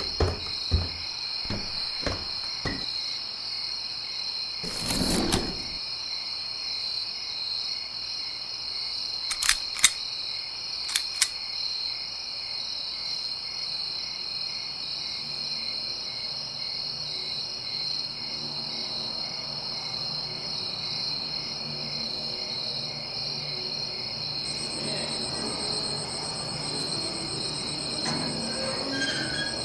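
Steady chirping of a cricket chorus, high trills that keep up throughout. In the first few seconds a few footsteps land on stairs. A whoosh comes about five seconds in, and a few sharp clicks come around ten seconds in.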